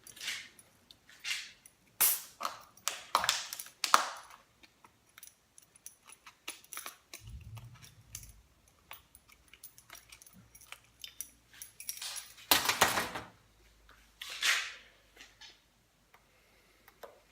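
Shotgunning a 25-ounce can of King Cobra beer: a cluster of sharp noisy bursts in the first few seconds as the can is opened, quieter stretches of drinking with a low rumble around the middle, and a loud noisy burst about twelve seconds in.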